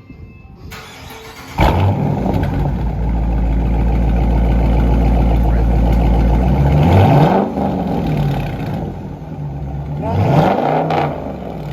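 2020 Dodge Charger R/T's 5.7-litre HEMI V8 starting about a second and a half in with a loud flare, then idling. It is revved twice, near the middle and near the end. The mid mufflers (resonators) are deleted and the rear mufflers are still on.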